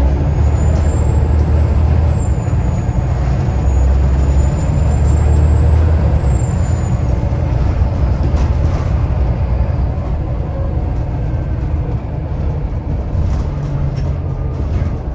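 Volvo B7TL bus's turbocharged diesel engine running under load with a low drone. A high turbo whistle rises and falls twice over about the first seven seconds, then fades out.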